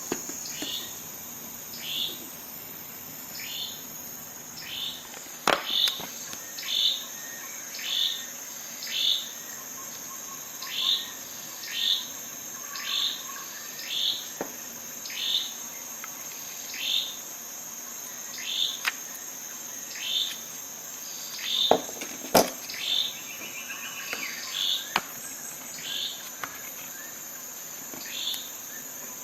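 Insects, likely crickets, chirping steadily and high-pitched, with a short, high, falling call repeated about once a second. A few sharp clicks stand out, the loudest about a fifth of the way in and twice about three quarters of the way through.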